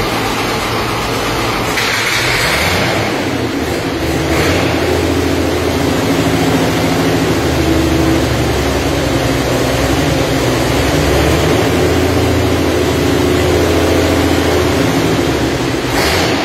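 International pulling tractor's engine running steadily on a hub dyno, its low tone stepping up and down a few times.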